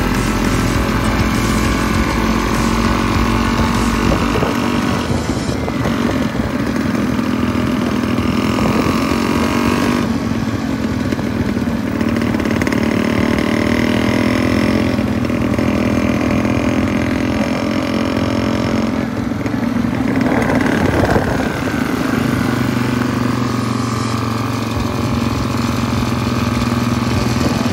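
Vintage motorcycle engine running as the bike rides along at a steady pace, the note changing abruptly several times and gliding in pitch about twenty seconds in.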